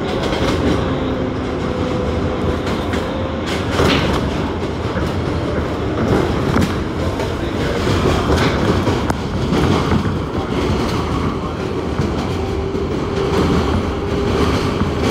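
New York 7 line subway car running at speed on elevated track, heard from inside the car: a steady rumble of wheels on rails with irregular clattering over rail joints.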